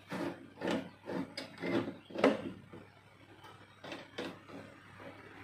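Upper blade guide post of a Makita LB1200F bandsaw being slid and set by hand while the saw is switched off. A run of short metal scrapes and knocks fills the first two seconds, the loudest a sharp knock just after two seconds, followed by a few faint clicks.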